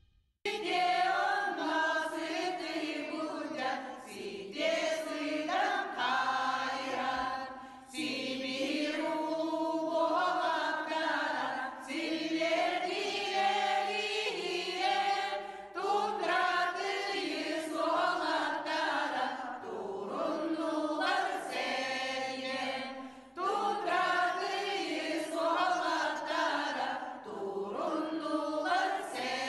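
A group of voices singing together in phrases of about four seconds each, over a low steady bass line that steps from note to note.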